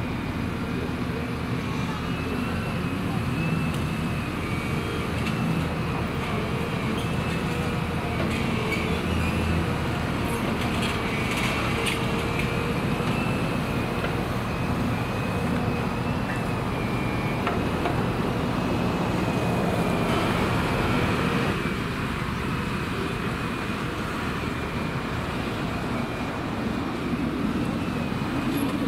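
Heavy diesel construction machinery, excavators, running steadily at work, with a thin high whine over the engine drone.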